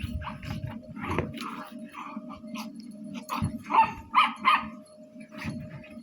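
Toy poodle puppy barking in short, high yaps, with three loud ones close together about four seconds in.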